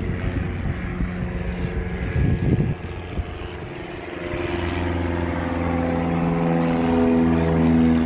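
Aircraft engine running, a steady drone of several held tones that grows louder from about four seconds in. A brief low rumble comes about two seconds in.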